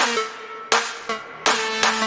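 Electronic dance music: sharp beats with sustained synth chords between them.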